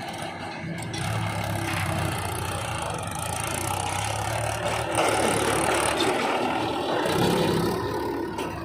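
Diesel engine of a JCB 3DX backhoe loader running steadily, getting louder about halfway through.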